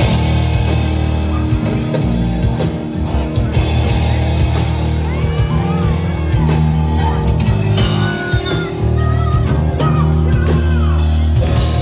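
Live rock band playing an instrumental passage on electric guitar, electric bass and drum kit, with a steady drum beat and bending lead-guitar lines in the middle.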